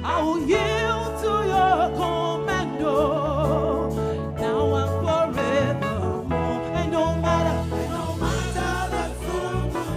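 Gospel song performed live: a singer's wavering vocal run with strong vibrato, over instrumental accompaniment with sustained bass notes.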